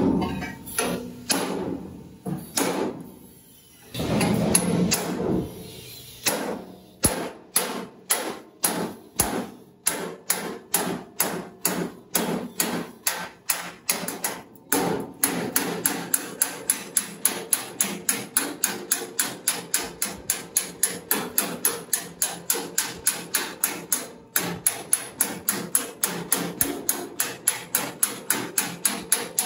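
Hammer blows on sheet metal in a steady, quick rhythm, about two a second and speeding up to about three a second in the second half.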